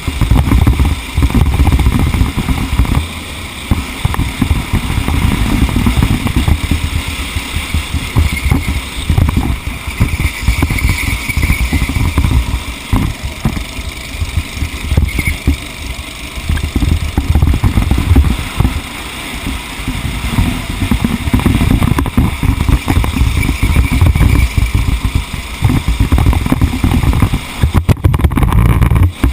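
A vehicle running over rough ground, heard onboard, with a loud gusty rumble of wind buffeting the microphone that rises and falls throughout.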